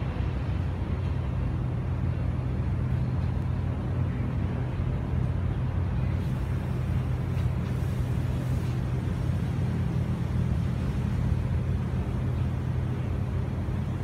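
Steady low drone of an engine running at a constant speed, with no change in pitch or level.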